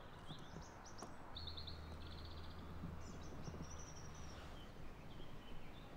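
Faint outdoor ambience: small birds chirping and trilling, with a steady low hum for a few seconds in the middle.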